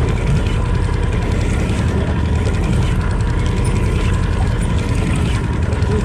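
Boat's outboard motor running steadily, a low hum.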